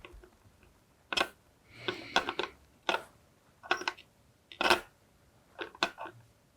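A string of light, separate clicks and taps from small tools and a circuit board handled on a workbench while the last solder joints are made, some coming in quick pairs.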